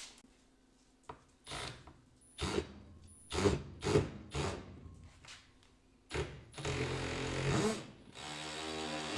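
Woodworking clamps being released and taken off a glued-up wooden table: about five separate knocks and clacks of clamp handles and jaws against wood, then from about six seconds in a few seconds of steadier mechanical noise with a low hum.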